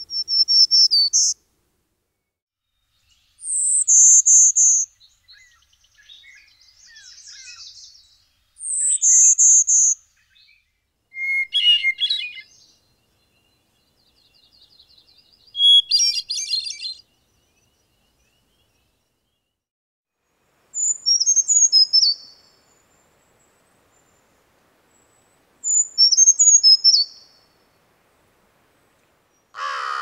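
Black-throated green warbler singing its buzzy 'zee zee zo zo zee' song three times. About ten seconds in, a hermit thrush takes over with four songs a few seconds apart, each a run of echoing, flute-like phrases set at a different pitch.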